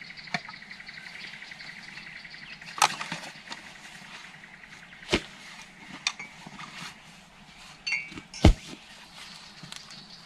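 Camping gear being unloaded from a motorcycle's rack: scattered knocks, clicks and rustles of bags, straps and buckles being handled, with the loudest knock late on as an item is set down. A steady high-pitched hiss runs underneath.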